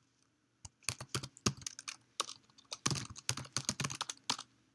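Typing on a computer keyboard: irregular key clicks in quick runs, starting about half a second in, with a dense flurry around the three-second mark.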